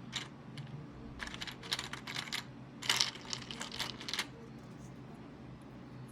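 Plastic PBT keycaps clicking and clattering against each other as they are handled, in two runs of quick light clicks a little over a second long each.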